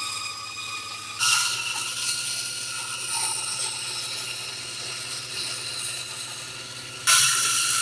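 An electric power tool running steadily with a constant whine, turning suddenly louder and harsher about a second in and again near the end.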